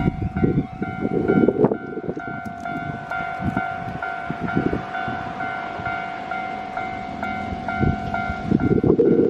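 Japanese level crossing's electronic warning bell ringing steadily in rapid repeated strokes, about three a second, while a Keio Line train runs over the crossing with wheel rumble and clatter. The train noise is heaviest at the start and swells again near the end.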